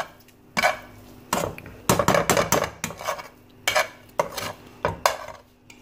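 Perforated metal slotted spoon scraping and stirring dry-cooked minced-meat (keema) filling around the bottom of a metal pan, in about ten quick, irregular strokes. The keema has been cooked down without oil until its water has fully dried off.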